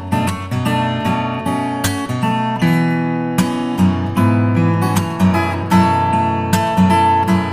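Background music: acoustic guitar playing plucked and strummed notes at a steady, unhurried pace.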